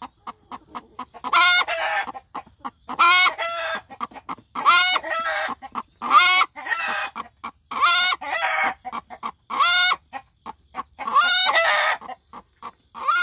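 A young hen cackling her egg song on the nest: a loud, drawn-out call about every one and a half to two seconds, eight times over, with short quick clucks between them.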